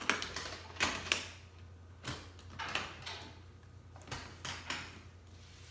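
Metal latches on a hard-shell guitar case being snapped open one after another: a string of sharp clicks and knocks, with the case being handled between them.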